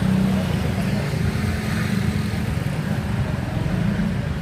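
Road traffic: motor vehicle engines running with a steady low rumble.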